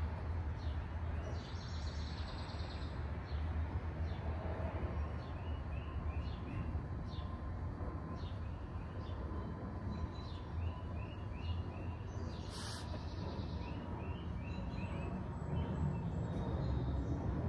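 Steady low hum of the shop's background, with a bird chirping in short runs of quick notes. There are a few light clicks and one brief sharp clink about twelve seconds in, from hand-tool work under the car.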